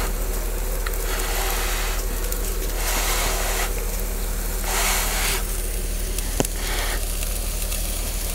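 Steady background hiss over a low hum, with several brief rushes of noise about half a second each and a single click past six seconds in.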